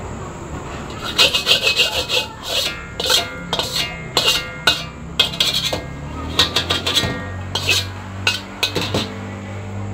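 Metal spatula scraping and knocking against a wok in quick, irregular strokes, several a second, over a steady low hum.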